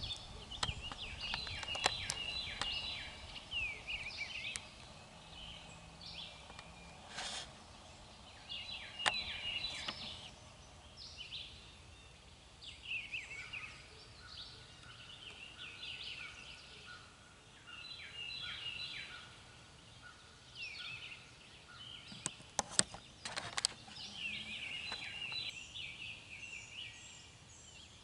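Songbirds chirping and singing in spring woodland, many short song phrases and trills overlapping, with a few sharp snaps or clicks, two close together about three quarters of the way in.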